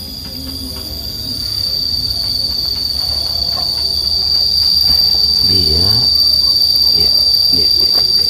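A steady, shrill insect drone on a single high tone, growing louder over the first few seconds and then holding.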